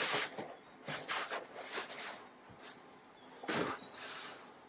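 A large sheet of wood veneer being unrolled and flexed by hand, rustling in about five short swishes.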